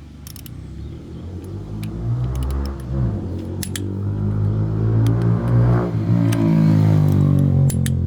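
Ford Focus ST's five-cylinder turbo engine accelerating, getting louder as the revs climb, with a change in pitch about six seconds in, typical of a gear change. Scattered short clicks sound over it.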